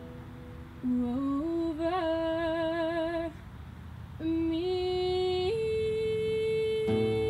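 A young woman singing a slow song solo into a microphone, in long held notes with vibrato and a brief pause between phrases. The acoustic guitar comes back in with a strum near the end.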